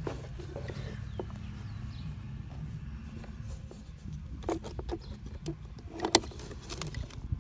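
Scattered sharp clicks and knocks of plastic console trim and electrical connectors being handled and unplugged, over a steady low hum.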